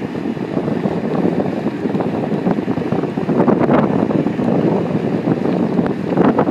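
Strong gusty wind buffeting the microphone, with the nylon fabric of an inflatable air dancer flapping as the wind throws it about.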